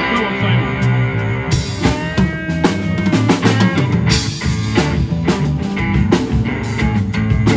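Rock band playing an instrumental passage: drum kit with bass drum and snare, cymbals coming in about a second and a half in, over bass and electric guitar.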